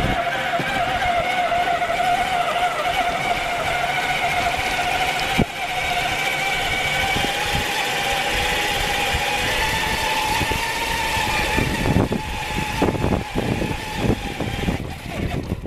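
Ride-on 12.5-inch gauge Köf shunting locomotive's diesel engine running while hauling loaded freight wagons, with a steady high whine that rises a little about halfway. Near the end, a run of clacks and knocks from the wheels on the track.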